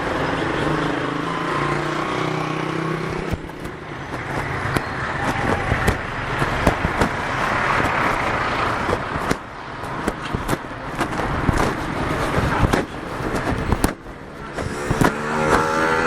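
Street traffic: cars passing one after another, their noise swelling and fading, with scattered sharp clicks and knocks.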